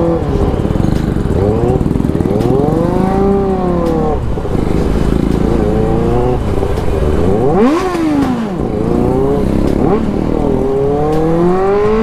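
Superbike engine being revved again and again while riding slowly, its pitch rising and falling every second or two over the low running rumble.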